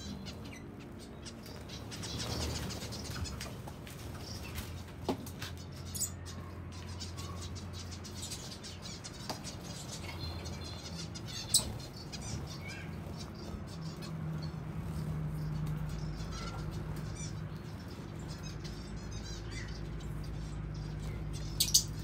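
Flock of zebra finches feeding on seed: wings fluttering as birds flit up and land, with short calls and scattered sharp clicks. There is one louder click about halfway through and a quick pair of them near the end.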